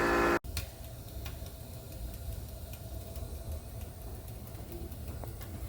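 A steady hum cuts off abruptly less than half a second in, leaving faint low background noise with a few light ticks.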